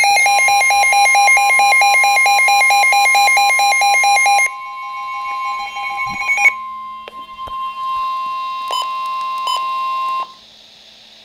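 Emergency Alert System alert tones: a loud, rapidly pulsing electronic alarm tone over a steady tone for about four and a half seconds. The steady tone then continues alone, quieter, and cuts off about ten seconds in.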